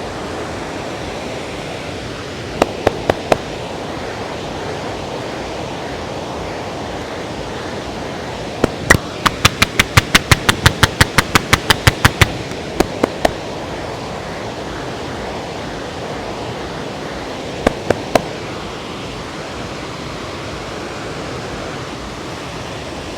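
Steady rush of the Parvati River flowing. Over it come bursts of sharp clicks: four in quick succession a few seconds in, a rapid run of about twenty near the middle, and three more later on.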